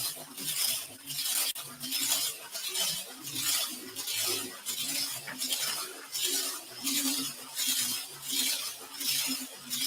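Rhythmic swishing, a 'shh, shh, shh, shh' about twice a second, from a woman's exercise workout, steady like white noise.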